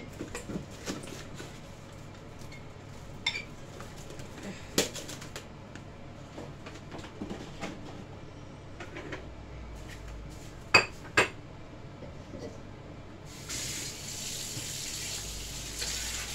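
Kitchen clatter of pots, utensils and dishes being handled, with scattered sharp knocks, the loudest two close together about eleven seconds in. About thirteen seconds in, a tap starts running steadily.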